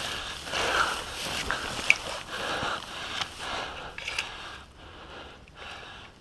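An airsoft player moving on foot: irregular scraping and rustling steps and gear noise, about one or two a second, growing quieter after about four seconds.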